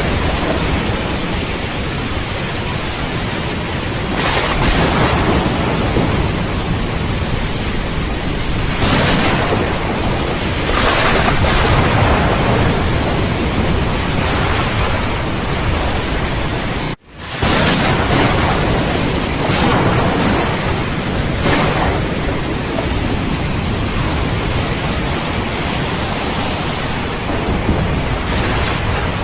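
Steady heavy rain with thunder rolling in and swelling several times. About two-thirds of the way through, the sound cuts out for an instant and resumes abruptly.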